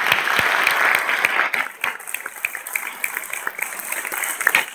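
Audience applauding, densest for the first second and a half, then thinning to scattered individual claps.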